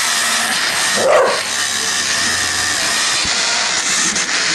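A dog barks once, about a second in, over a steady loud whirring noise.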